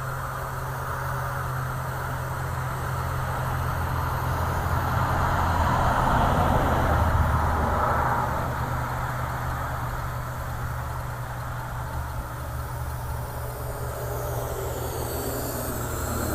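Parrot AR.Drone quadcopter's rotors whirring steadily in flight, swelling louder about halfway through and then easing off, with the motor pitch shifting up and down near the end.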